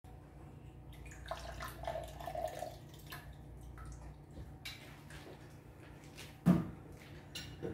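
Lemon juice dripping and trickling into a glass as a lemon half is squeezed in a hand-held citrus press, with small clicks and creaks from the press. About six and a half seconds in, a single sharp knock on the bar top.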